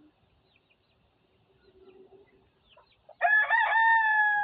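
Rooster crowing once, starting about three seconds in: a few short wavering notes, then one long held note. Faint chirps and clucks come before it.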